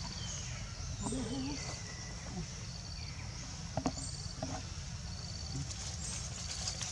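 Forest ambience: insects trilling in short bursts that repeat about once a second, over a steady low rumble. A brief wavering voice sounds about a second in, and two faint knocks come near four seconds.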